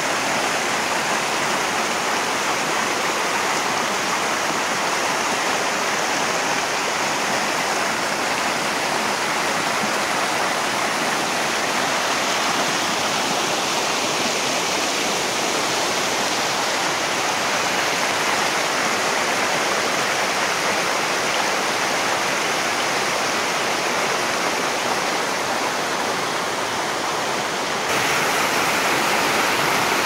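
Mountain stream rushing over rocks and small cascades, a steady sound of running water. Near the end it grows louder as a close, foaming cascade takes over.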